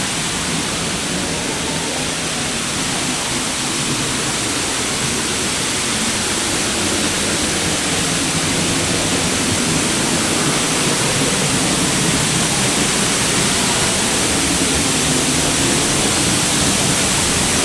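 Loud, steady roar of a large waterfall, Dry Falls, heard close up from behind the falling water, with spray wetting the microphone.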